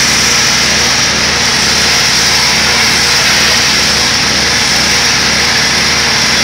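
Pressure washer running steadily: an even engine hum under the hiss of the water jet spraying a concrete wall.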